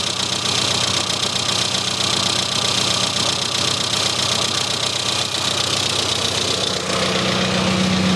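Classic Mini's A-series four-cylinder engine idling steadily while the carburettor's idle mixture screw is turned in, richening the mixture. About seven seconds in the engine note changes, its low hum getting louder.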